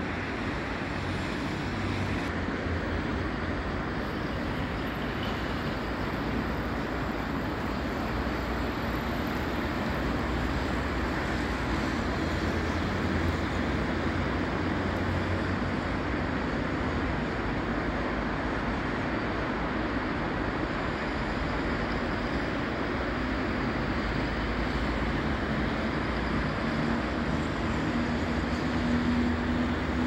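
Steady city road traffic on a multi-lane avenue: cars and motorcycles passing, their engine rumble and tyre noise blended into one continuous wash. A deeper engine hum grows louder near the end.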